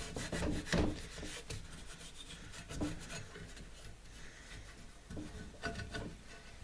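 Wax being rubbed by hand onto a timber surface: a run of short, irregular scrubbing strokes.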